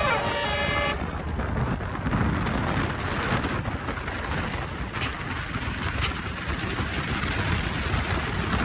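A bus's multi-tone telolet (basuri) horn plays its melody and cuts off about a second in. After that comes a steady rush of passing bus and road traffic noise.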